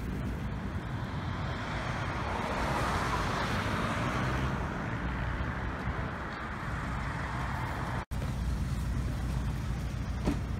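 Road traffic noise: a steady low rumble of vehicles on a multi-lane road, with a passing vehicle swelling the hiss about three seconds in. The sound cuts out for an instant about eight seconds in.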